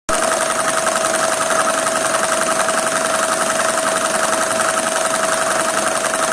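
Two-cylinder Lego vacuum engine running fast on a vacuum cleaner's suction: a rapid, even clatter of plastic pistons and valves over the vacuum cleaner's steady, high-toned motor.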